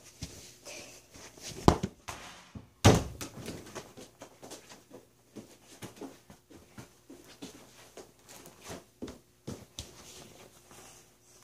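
A small toy ball being kicked around a room and striking the wooden floor and walls: two loud thuds about two and three seconds in, then lighter taps and bumps.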